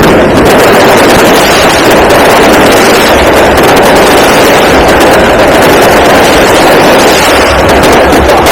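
Aerial fireworks going off in a dense barrage: bursts and rapid crackling run together into one continuous loud rumble with no gaps.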